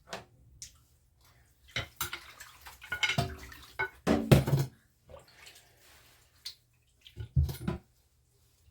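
Raw cut-up chicken pieces being handled with water, in a few irregular splashes and knocks a second or more apart.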